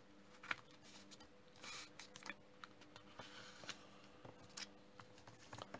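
Faint rustles and light clicks of a sheet of origami paper being handled and creased by fingers, a sharper click about half a second in, over a faint steady hum.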